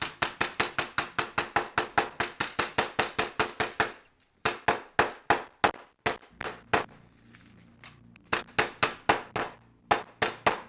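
Metal kitchen mallet pounding shelled pistachios in a sealed plastic zip-top bag on a wooden board, crushing them: a fast run of sharp knocks about four a second, in three bursts with short pauses between them.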